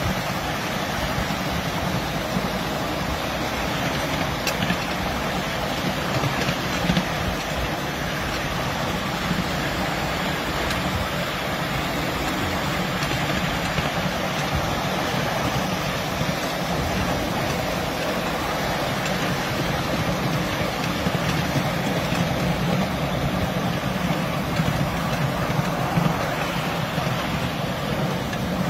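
Steady running noise of a 7.25-inch gauge miniature train heard from a riding car: the rumble of the train moving along the track, with a few sharp clicks.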